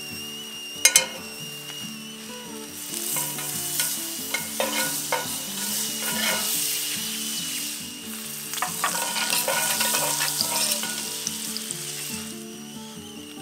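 Butter sizzling and crackling in steel egg rings in a hot cast-iron pan over a braai fire. It comes in two bursts as butter goes into each ring, after two sharp metallic clinks about a second in.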